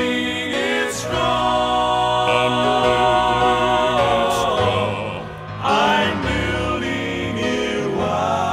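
Southern gospel male quartet (tenor, lead, baritone, bass) singing long held notes in close harmony over instrumental accompaniment, with a new phrase entering about five and a half seconds in.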